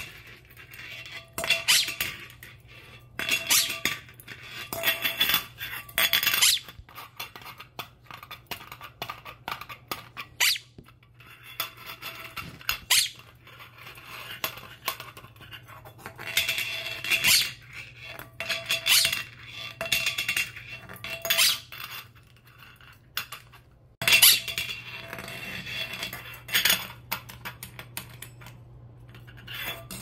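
Metal jar lid clattering, spinning and scraping on a tile floor as a Quaker parrot grabs, tosses and chases it, with many sharp clinks throughout. The parrot's high squeaky laughing calls come in between, loudest in a few stretches.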